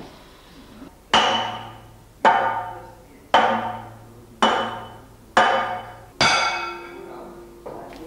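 Six heavy hammer blows, about one a second, on a steel gear shaft from a 1913 John Fowler steam ploughing engine, each blow ringing out and dying away.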